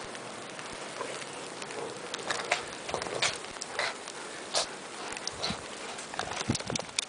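Footsteps crunching through snow: a run of irregular crunches starting about two seconds in, over a steady background hiss.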